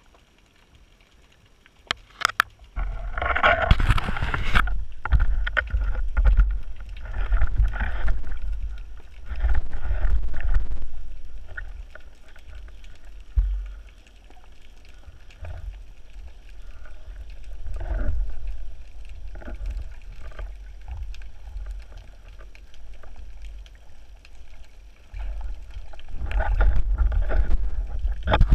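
Muffled water noise and handling knocks picked up by an action camera in an underwater housing while a spearfisher swims and handles his catch: a few sharp clicks about two seconds in, then an uneven low rumble with louder surges that eases in the middle and builds again near the end.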